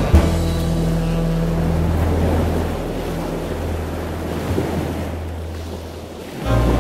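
Rushing ocean surf over a few low held bass notes, dipping down near the end as the music swells back in.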